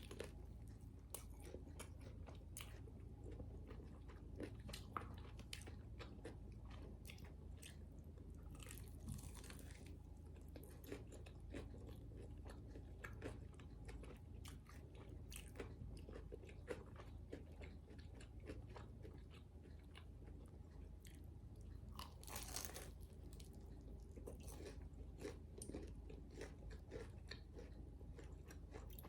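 A person biting and chewing crunchy fried food close to the microphone: a steady run of crisp crunches, with two longer crackling stretches about nine and twenty-two seconds in.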